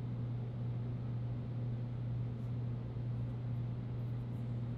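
Steady low hum with an even hiss of background room noise, with a few faint high ticks about halfway through and near the end.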